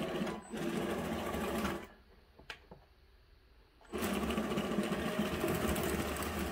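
Geared electric track motors of an RC-converted Bruder Cat bulldozer running as it pivots in place on a tabletop. They run for about two seconds, go quiet for about two seconds apart from a single click, then start running steadily again.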